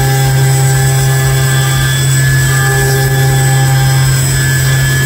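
A 12 mm three-flute end mill spinning at 8,000 rpm on a milling machine, cutting 6061 aluminium in a deep side pass (19.5 mm depth of cut, 2 mm stepover): a loud, steady cutting tone that holds even throughout.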